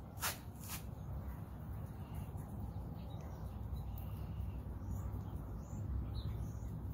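Faint, scattered bird chirps and calls in the background over a steady low rumble, with two sharp clicks in the first second.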